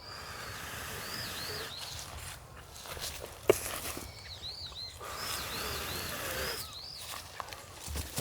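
A small bird calling, a quick string of short arched chirps in two runs about four seconds apart, each over a soft hiss. A single sharp snap comes about three and a half seconds in.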